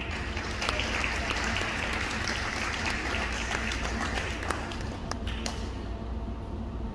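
Audience applauding, a dense patter of hand claps that dies away about five and a half seconds in.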